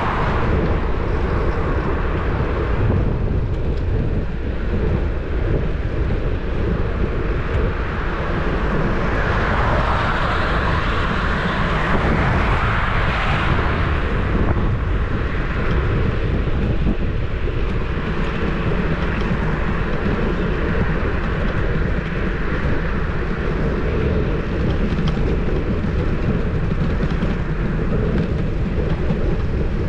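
Steady wind rush and rumble on the microphone of a bicycle-mounted action camera while riding, with tyre and road noise. The hiss swells louder about ten to fourteen seconds in.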